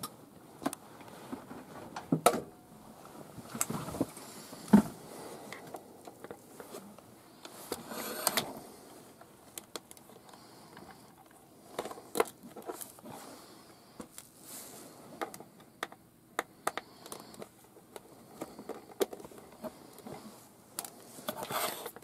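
Scattered clicks, taps and light scrapes of a small precision screwdriver working the tiny screws under the aerial of a Roberts R9974 radio's plastic case, with the odd knock of the case and tools on the bench.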